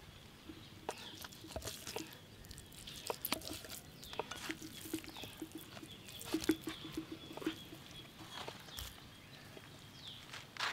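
Knife knocking on a wooden chopping stump as chunks of tuna are cut into small cubes, in scattered sharp knocks. A faint run of short low calls sounds in the middle.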